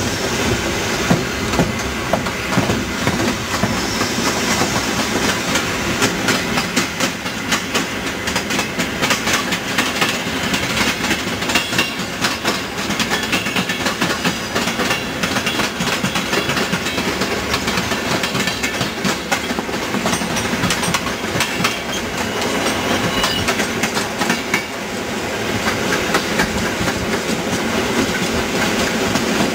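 Moving EN57 electric multiple unit heard from on board: wheels clattering over rail joints and points in quick irregular runs, over a steady rolling noise.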